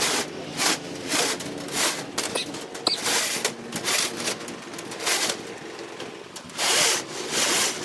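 Irregular scraping and rustling strokes of steel rebar and wire mesh rubbing against a plastic tarp as the reinforcement is handled and stepped on, with two longer scrapes near the end.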